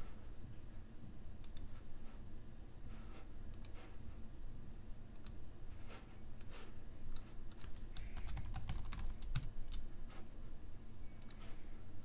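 Scattered, irregular clicks of a computer mouse and keyboard over a faint low hum.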